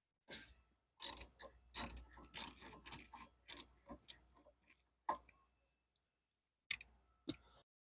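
Socket ratchet clicking in short strokes, about two a second, as the 10 mm mounting bolts of an ATV starter solenoid are worked loose, followed by a few single metallic clicks near the end.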